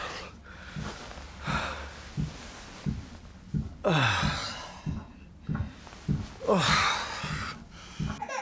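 Couple having sex: rhythmic short grunts about twice a second, breathy gasps, and two long moans falling in pitch.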